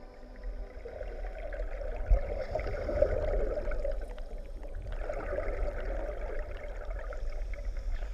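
Underwater audio of water rushing and bubbling past the camera, swelling and easing a couple of times over a steady low rumble.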